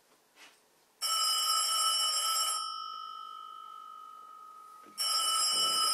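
Desk telephone's bell ringing twice. The first ring lasts about a second and a half and its tone rings on and fades for a couple of seconds. A second ring starts near the end.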